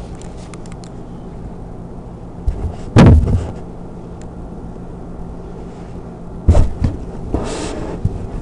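Handling noise as a preserved dissection specimen and the camera are moved about on a table: a loud thump about three seconds in, a second thump about six and a half seconds in, then a brief rustle.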